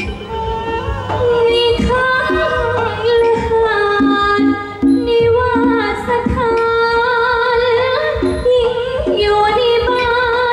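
A woman singing a likay song through a headset microphone, in long held notes with wavering ornaments, over instrumental accompaniment.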